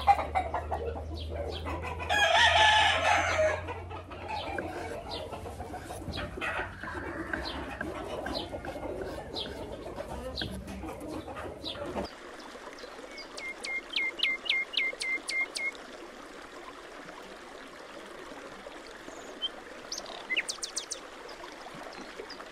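A rooster crows once about two seconds in, the loudest sound, among clucking roosters. Throughout there are light knife taps on a wooden cutting board as a plantain is sliced and diced, including a quick run of taps near the middle.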